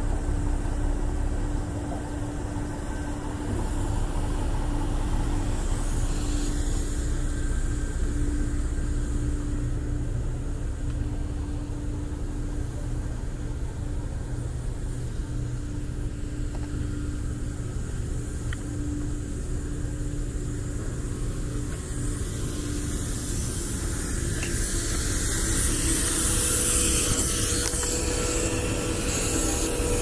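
Steady drone of a machinery engine running, with a constant hum throughout. A brighter, hissier noise builds over the last several seconds.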